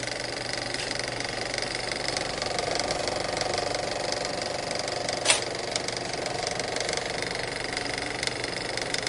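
A small machine running with a fast, even clatter over a steady hum, with one sharp click about five seconds in.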